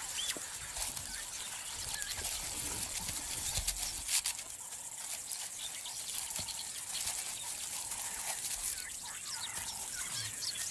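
Faint bush ambience: scattered short chirps over a steady high hiss, with a few light clicks.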